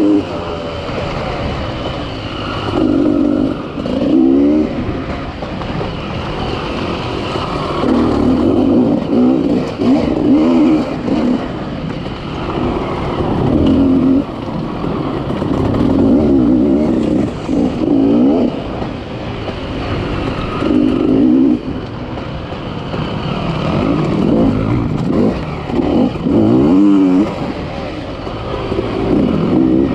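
Off-road race vehicle's engine revving hard in repeated bursts, the pitch rising and falling as the throttle is opened and let off every few seconds.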